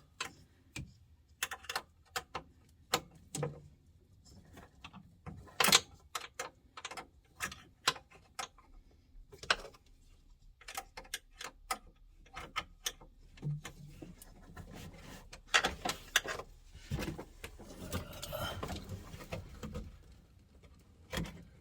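Irregular metallic clicks and knocks of hand tools working a rusty switch loose from a Jeep CJ7 steering column, with a denser stretch of rattling and scraping late on.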